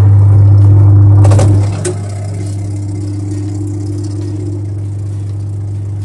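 Twin-tub washing machine's wash motor running with a steady low hum, loud for the first two seconds and then quieter, with a couple of light clicks about a second and a half in. The motor turns but is too weak to drive the pulsator, a fault traced to a leaking gearbox.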